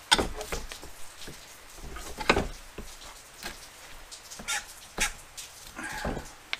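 Metal mount bar of a manual mini tire changer working a small mower tire's bead over its rim: sharp clanks and knocks of the bar against the rim and changer, the loudest right at the start and about two seconds in, with lighter knocks and scraping between and a short squeak near the end.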